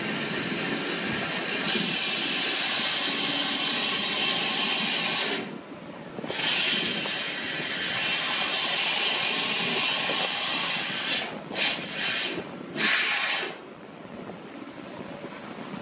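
Loud hiss from a fishing boat's deck winch machinery, switched on and off: a long steady stretch broken by a gap of about a second, then several short bursts before it cuts off suddenly near the end.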